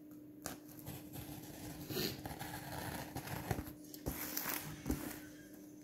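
Scissors blade scraping and cutting through packing tape on a cardboard box: quiet rustling and scraping broken by several sharp clicks as the blade catches and the cardboard is handled.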